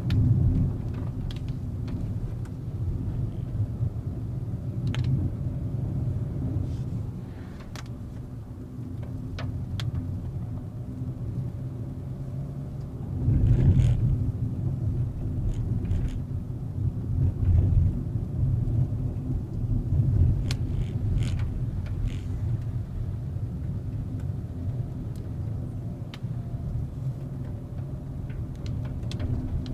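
Volkswagen Vento with a 1.2 TSI turbocharged petrol engine driving: a steady low rumble of engine and road noise, with scattered light clicks and knocks. The rumble swells louder about thirteen seconds in.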